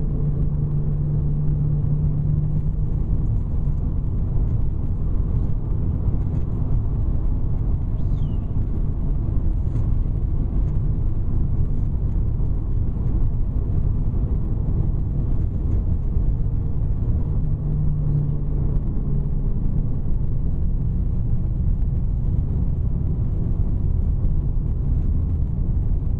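Steady low rumble of a car cruising at highway speed, heard from inside the cabin: tyre and engine noise, with a low hum that fades out a few seconds in and returns briefly later.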